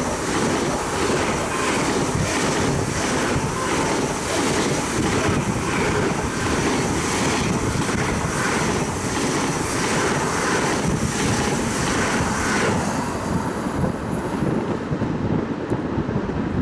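Sapsan (EVS1, Siemens Velaro RUS) high-speed electric train passing close by at speed. A dense rush of wheels and air carries a regular beat of passing bogies a little under twice a second, then fades out about thirteen seconds in, leaving wind on the microphone.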